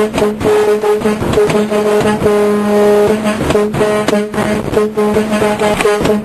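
Semi-truck air horn sounded in many short tugs in quick succession, one held a little longer about two seconds in.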